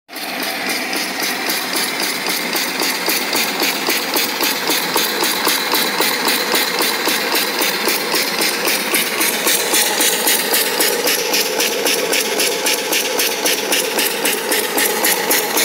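Homemade single-cylinder steam engine, 2-inch bore and 2-inch stroke, running steadily on live steam: a fast, even beat of exhaust chuffs over a constant hiss of escaping steam.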